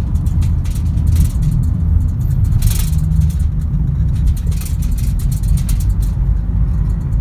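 A Lada Largus Cross driving along a rough road: a steady low rumble of engine and tyres, with frequent short clicks and rattles, the strongest a little under three seconds in.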